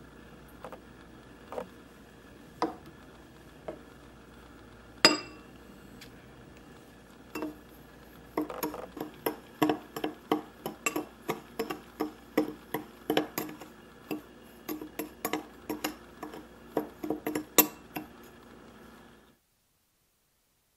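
Metal spoon clinking against a small glass bowl while mixing ramen seasoning powder with sugar: a few scattered taps, one sharp ringing glass clink about five seconds in, then quick repeated clinks, about three a second, for some ten seconds.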